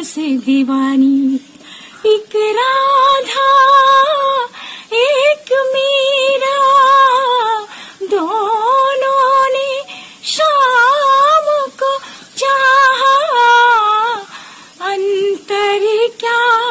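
A woman singing unaccompanied, holding long notes with vibrato, in phrases broken by short pauses.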